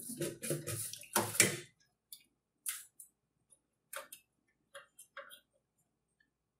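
Hands working a RAM stick in a desktop motherboard's memory slot. A second and a half of handling noise is followed by scattered faint plastic clicks and ticks as the module and slot are worked.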